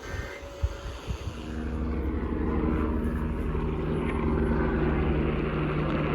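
A steady engine drone that swells in from about a second in and then holds, with several low steady hums under a wash of noise.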